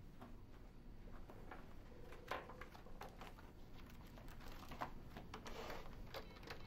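Faint, scattered clicks of typing on a computer keyboard, with paper sheets being handled.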